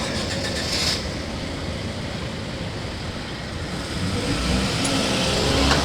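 A motor vehicle running close by, a steady rumble that grows louder about four seconds in.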